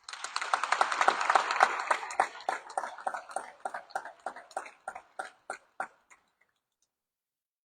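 Audience applauding, full at first, then thinning to scattered claps that die out about six seconds in.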